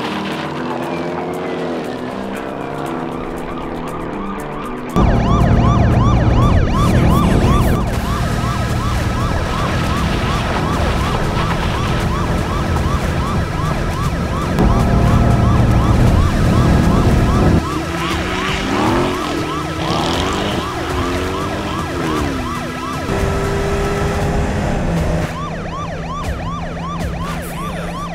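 Police car siren wailing in a fast, repeating up-and-down cycle of about three a second, with car engines revving under it. A deep, heavy low end comes and goes in blocks.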